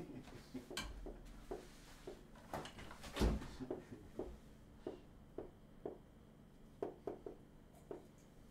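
Marker writing on a flip-chart easel: a run of faint, short taps and scratches at an uneven pace, with one louder thump a little over three seconds in.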